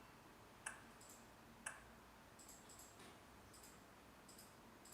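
Faint, short clicks of fingers tapping the alarm panel's touch keypad, two clearer taps about a second apart near the start and several fainter ones after, as the disarm code is keyed in.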